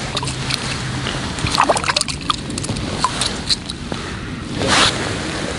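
Wind on the microphone, with scattered small clicks and wet crackles from hands handling things on wet, slushy ice, and a brief louder rushing noise about four and a half seconds in.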